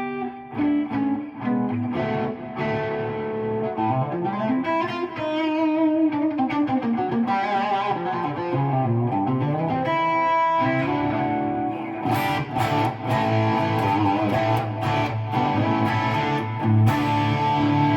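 Gibson R9 Les Paul with Custombucker humbuckers played through a Friedman SS100v2 amp on its first gain channel, gain at about 4, into a 2x12 cabinet: a mid-gain crunch tone. Single-note lead lines with string bends and vibrato come first, then hard-picked, strummed chords in the last third.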